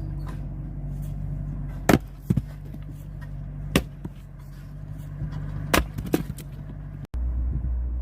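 Axe strikes splitting firewood: sharp knocks about 2 s in, near 4 s and about 6 s in, the first and last each followed closely by a second knock, over a steady engine hum. At about 7 s the sound cuts to a louder, deeper steady hum.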